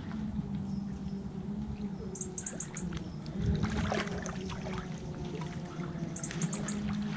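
Lake water sloshing and splashing as a sturgeon is handled in a landing net in the shallow margin, with a louder splash about three and a half seconds in.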